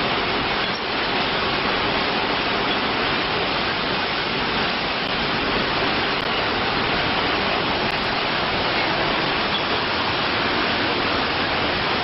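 Hurricane-force wind with driving rain, making a steady, unbroken rushing noise.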